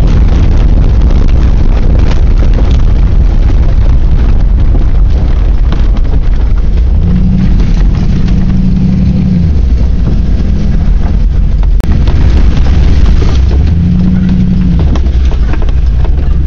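Ford Bronco driving over rough ground, heard from the cab: loud, rumbling engine and drivetrain noise, distorted on the microphone. A steady engine tone comes up twice, about seven and fourteen seconds in, and there is a brief break about twelve seconds in.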